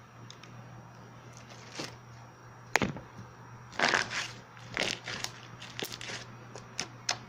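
Slime being squeezed and worked by hand, giving irregular sharp pops and crackles, with one loud snap just under three seconds in and a thick run of crackling in the middle.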